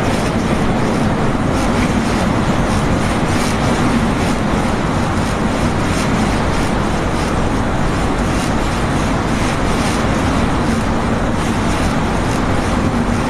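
Steady loud rumbling noise of a shake-table earthquake test, the table driving a full-scale wooden house, with frequent faint clicks over the rumble.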